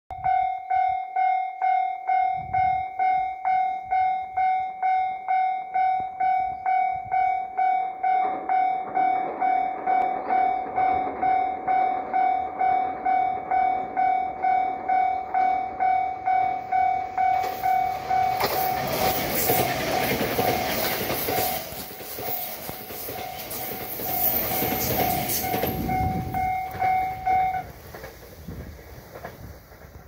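A Japanese level-crossing warning bell rings at about two strikes a second. From about eight seconds in, a JR Kyushu 787 series electric train is heard approaching, and it passes loudly with wheel and running noise. The bell stops near the end as the train noise fades.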